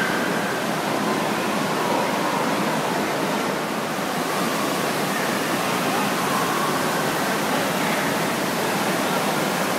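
Indoor water park din: a steady rush of flowing and splashing water echoing through the hall, with faint distant voices now and then.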